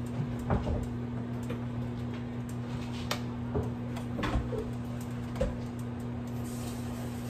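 A steady low hum with a few scattered light clicks and taps as a spoon and a seasoning container are handled over a metal cooking pot.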